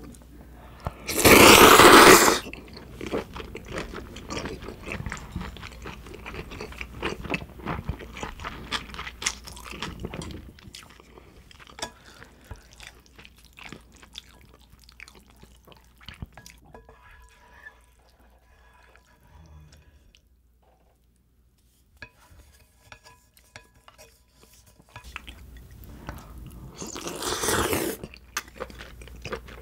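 A person slurping naengmyeon cold noodles, loudly about a second in and again near the end, with close-up chewing between. In the quieter middle stretch, wooden chopsticks clink faintly against the bowl.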